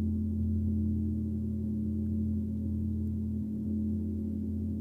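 Gong played softly in the background, its deep, sustained hum of overlapping low tones slowly fading.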